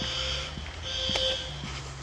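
Building fire alarm sounding the three-beep evacuation pattern: high-pitched beeps, the last of a group of three about a second in, then a pause before the next group.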